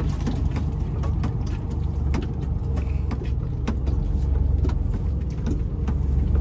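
Truck's diesel engine running at low speed as the truck creeps across the yard, heard from inside the cab as a steady low rumble, with irregular sharp clicks and crackles throughout.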